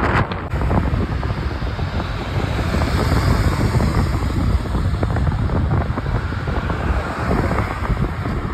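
Wind buffeting the microphone from a moving car, over steady road and traffic noise.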